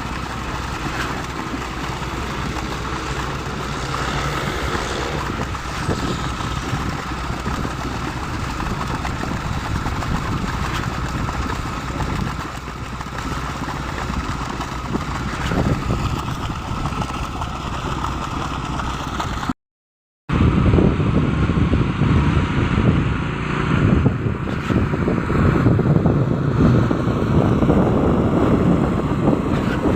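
Concrete pump truck's engine running steadily while pumping concrete. The sound drops out for about half a second around two-thirds of the way through, then comes back louder and rougher.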